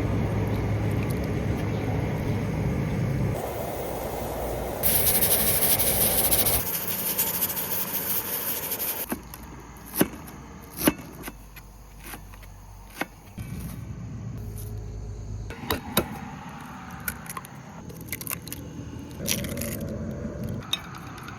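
Outdoor cooking sounds while rice is being started: metal pots and utensils clinking and knocking, a hissing rush of water for a couple of seconds about five seconds in, and the low rumble of passing highway traffic.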